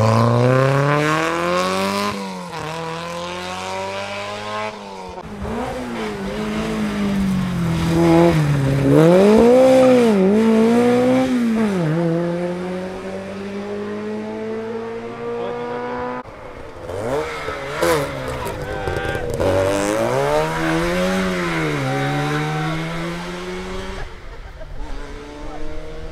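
Rally car engines revving hard on a special stage, the pitch climbing through each gear, dropping at the shifts and lifts, and swooping down and up again through corners. A second run of revving starts partway through.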